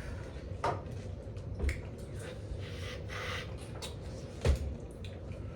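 A few short knocks or bumps, the loudest about four and a half seconds in, with a short hiss in the middle.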